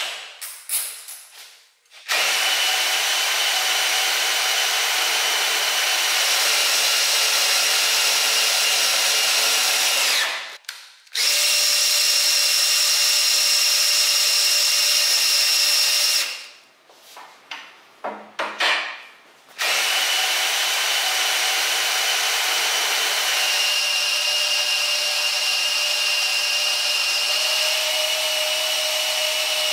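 Cordless drill running the welding table's elevation drive, which turns a reduction gear, chains, sprockets and screw shafts to raise or lower the table. It runs in three long, steady spells with short pauses between them, and a few clicks and knocks fall in the pauses.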